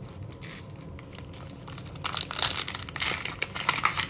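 Plastic wrapper of an Upper Deck hockey card pack crinkling as hands open it, light and sparse for the first two seconds, then a dense, loud crackle from about halfway in.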